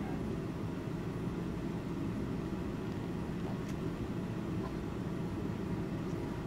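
Steady low rumble of background room noise, even throughout, with no distinct events.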